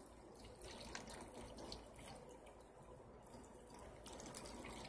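Faint trickle of water being poured into a tall glass flower vase, with a few light drips.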